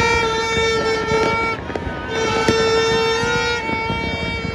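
A horn blowing repeated long blasts, each held at one steady pitch for about a second and a half with short breaks between. Scattered firework pops sound behind it.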